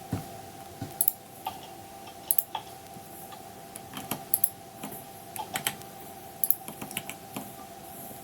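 Irregular clicks and taps of a computer keyboard, some in quick pairs, over a steady faint hum.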